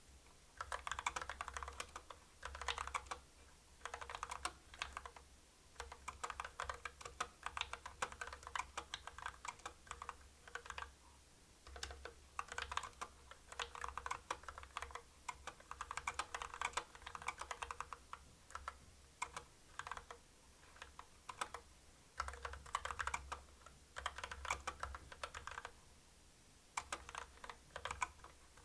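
Typing on a CU65 65% mechanical keyboard with linear Kailh Box Black switches: quick runs of key clacks in bursts of a few seconds, broken by short pauses.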